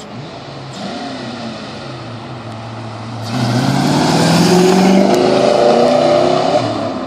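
5.0 V8 of a fox-body Mustang with headers, running as the car drives up, then accelerating hard past from about three seconds in, its pitch rising. It fades near the end as the car pulls away.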